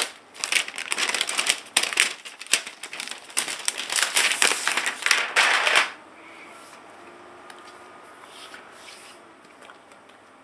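Plastic packaging crinkling and rustling as it is handled and pulled off a laptop for about six seconds, then only faint handling noise.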